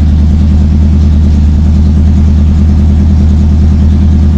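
1965 Ford Mustang Fastback's engine idling steadily with an even pulse while warming up after a start; the owner judges that its idle fuel mixture needs adjusting.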